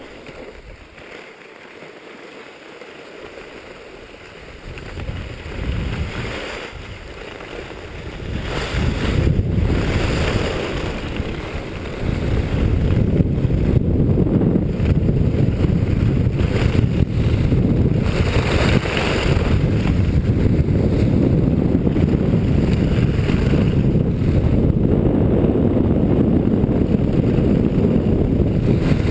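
Wind rushing over the helmet camera's microphone as the skier picks up speed down a groomed piste, quiet for the first few seconds, then growing and loud and steady from about twelve seconds in, with the skis scraping on the snow now and then.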